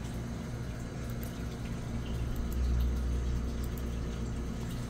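Steady low mechanical hum of room equipment, with a few faint ticks over it.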